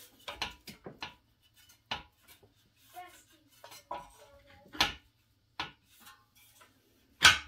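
Scattered sharp metal clinks, about six, the loudest near the end, as a Honda Z50's exhaust flange is worked up the exhaust pipe onto the cylinder head and catches where it tends to jam.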